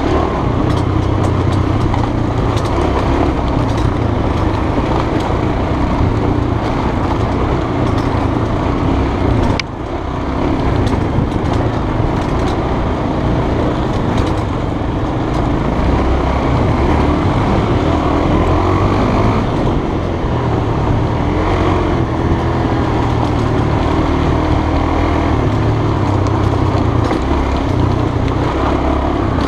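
Honda trail bike engine running steadily under way on a rough, rocky dirt track, with wind rush and small knocks and rattles from the bike over the stones. The engine briefly drops off about ten seconds in, as if the throttle is closed, then picks up again.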